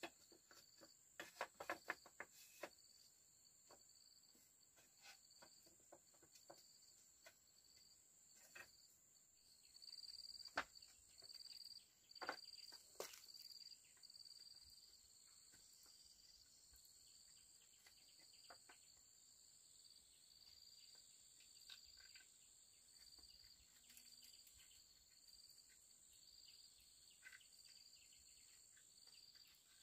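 Faint forest insects, crickets or similar, with a steady high drone and a lower chirp repeating about once a second. Scattered light clicks and knocks, clustered near the start and around the middle.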